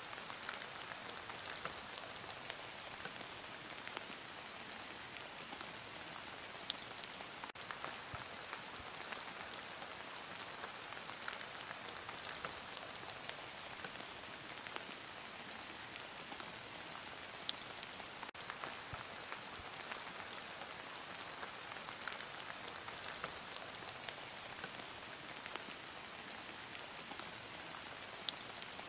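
Heavy rain falling steadily: a dense, even hiss of drops with scattered individual drop ticks.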